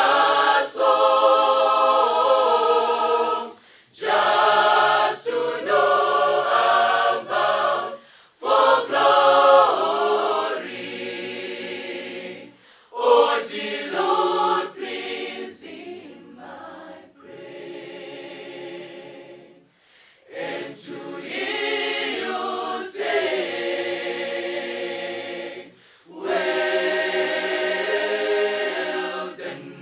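Group of voices singing a hymn unaccompanied, line by line with short breaks between phrases, softer through the middle.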